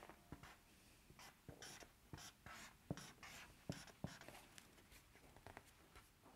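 Faint scratching and tapping of a pen writing calligraphy on a stiff square paper card, in short irregular strokes that stop near the end.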